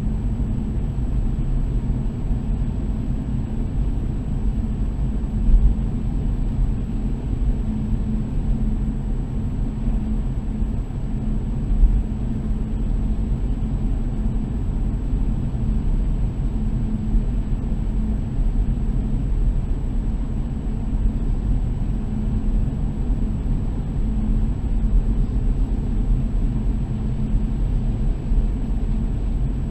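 Steady low rumble of a car driving on a concrete road, engine and tyre noise together, with a few brief thumps about six and twelve seconds in.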